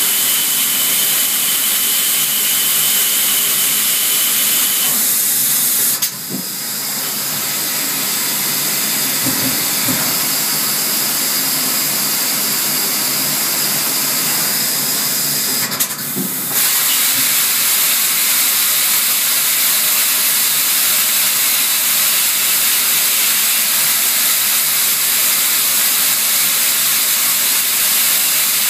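CNC lathe running with a loud, steady hiss while drilling and turning a part, with a thin high whine in the first few seconds. The sound breaks off and changes abruptly twice, about six and sixteen seconds in, as the tool turret changes tools.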